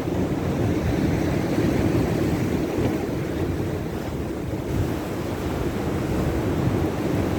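Steady rushing noise of wind buffeting the microphone over moving water, strongest in the low end.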